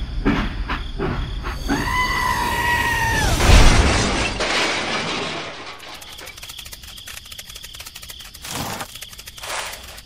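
A toy train crash, dubbed with sound effects: a held whistle-like tone for about a second and a half, then a loud crash with shattering about three and a half seconds in, dying away into a faint crackling rattle.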